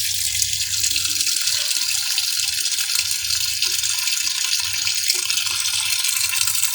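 Sharp washing machine running its wash cycle: a steady rush of water in the drum over a faint low hum.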